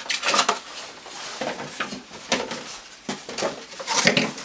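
Model packaging being handled: an irregular run of rustles, taps and light clatters.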